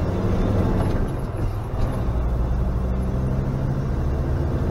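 Motorhome driving at a steady road speed, heard from inside the cab: its engine runs with an even low note over constant tyre and road noise.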